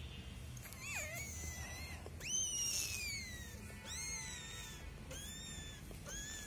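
Cat giving a series of about five high, thin mews, each rising briefly and then falling in pitch.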